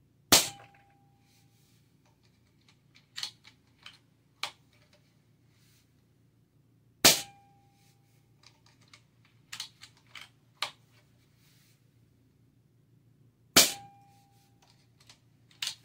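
Three moderated shots from a .25 calibre Avenger PCP air rifle fitted with a KILL-CAN LDC moderator, spaced about six and a half seconds apart: each a short sharp crack with little muzzle report, followed by a brief ringing tone, which the owner takes for the hammer spring at the back of the action. Lighter clicks and knocks come between the shots.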